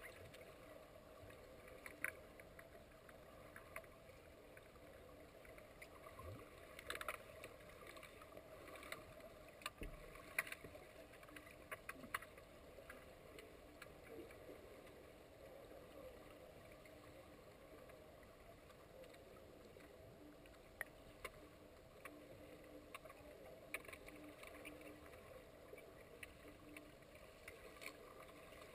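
Faint underwater pool ambience picked up by a submerged camera: a steady muffled hiss broken by scattered sharp clicks and knocks.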